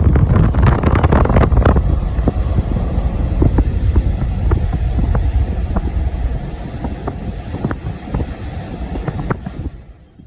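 MovinCool Classic Plus 14 portable air conditioner running, its blower giving a loud, steady rumble with scattered small clicks. The sound tapers off and drops away near the end.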